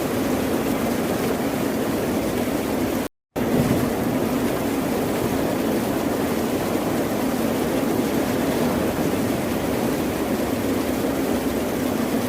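Steady, even rush of ocean surf with no separate wave breaks standing out, cut by a split-second gap of silence about three seconds in.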